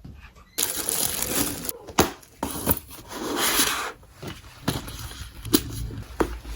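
Packaging being torn open and crinkled, in two longer rustling stretches, with several sharp clicks and knocks from the handling.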